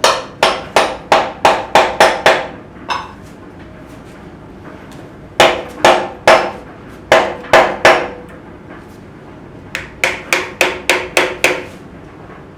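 Hammer blows on a metal engine part during an RB25DET block teardown: three runs of six to eight quick strikes, about two to three a second, each strike ringing briefly.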